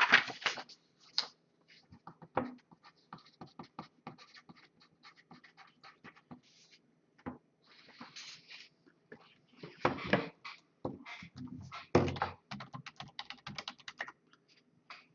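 Irregular clicking of a computer keyboard and mouse during typing, with a couple of louder knocks about ten and twelve seconds in.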